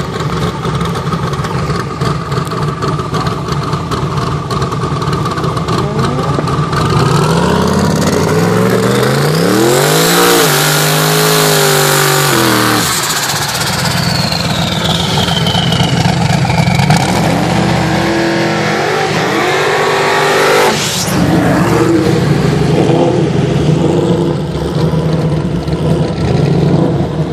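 Mustang Cobra and twin-turbo Camaro street racing: engines running at low revs at first, then launching about seven seconds in and accelerating hard, revving up and dropping at each gear change. A second run of rising revs comes later, ending in a sharp bang about three quarters of the way through.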